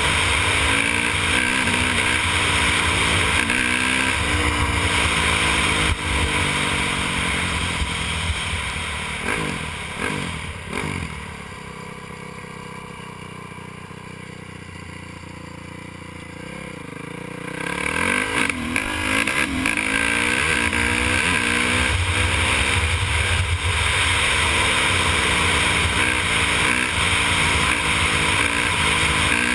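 Honda CRF450R's single-cylinder four-stroke engine under way, revs rising and falling as it shifts through the gears. About ten seconds in the engine drops back to low revs and goes quieter for several seconds. It then picks up and accelerates again.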